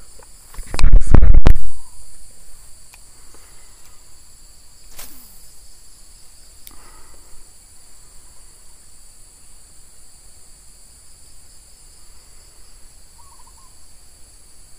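Outdoor rural ambience: insects droning steadily on several high pitches, with a short bird call near the end. About a second in, a loud rumbling burst of under a second hits the microphone, likely handling or wind.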